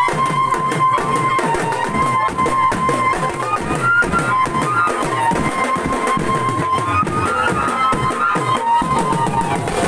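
Dance music from a benjo party band: a lead melody line carried over a steady drum beat.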